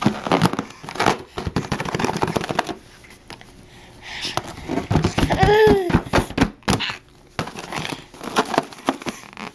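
Rubber balloon squeaking and rubbing under a toddler's hands and mouth, in quick bursts of clicks and squeaks. A short rising-and-falling baby squeal comes about five and a half seconds in.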